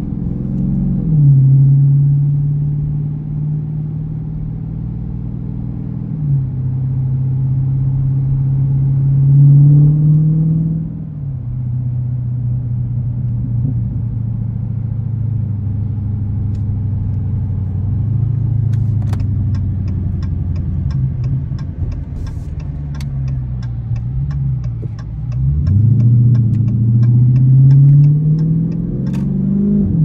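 2021 Dodge Scat Pack's 392 HEMI V8 pulling away from a light, heard from inside the cabin: the engine note climbs and drops three times as it shifts up, settles into a steady cruise, then climbs again and drops with one more shift near the end. A run of light ticks, about two a second, comes in during the second half.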